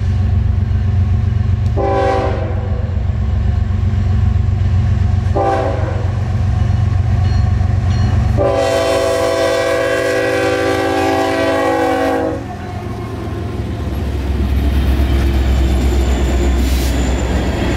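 CSX freight locomotives passing close by with their diesel engines running hard, the lead unit's horn giving two short blasts and then one long blast of about four seconds. The engine rumble drops as the long blast ends, and another low rumble builds near the end.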